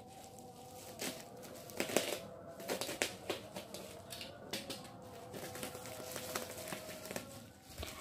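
Plastic shipping pouch crinkling and rustling as it is handled and cut open, with irregular small clicks and snips.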